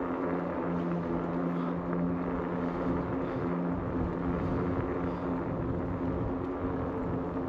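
Aventon Aventure 2.0 fat-tire e-bike riding on pavement: a steady hum from its rear hub motor and knobby tires over rushing noise. The hum's pitch dips slightly about a third of a second in and comes back up about three and a half seconds in.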